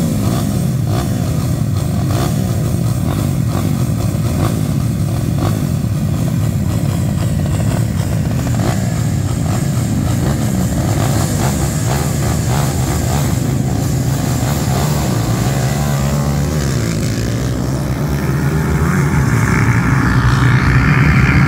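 Several 250 cc sidecar dirt-bike engines running and being revved together at the start line. Near the end they get louder as the bikes launch and accelerate away at the race start.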